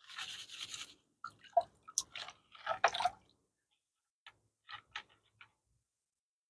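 Gravel and small rocks of gold paydirt being worked by hand in a gold pan: a short hiss, then a scatter of clicks and rattles that thins out toward the end.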